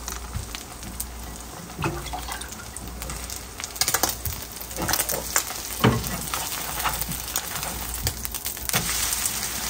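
Water poured from a bottle into a pan, while a vegetable-and-egg pancake sizzles in oil in a second pan. A metal spatula knocks and scrapes against the frying pan several times in the middle of the stretch.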